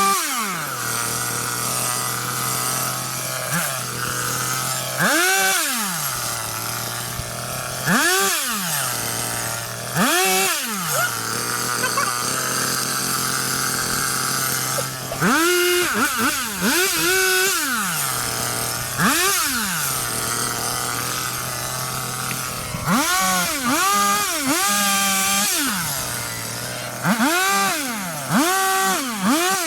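Two-stroke chainsaw cutting up a fallen pine, revved up and down about a dozen times with short stretches of idle between the cuts.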